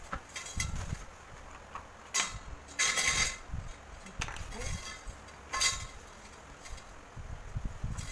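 Metal frame tubes of a fabric play crib knocking and clinking while they are fitted into the nylon cover, with the fabric rustling. There are several separate knocks and rustles, the longest and loudest about three seconds in.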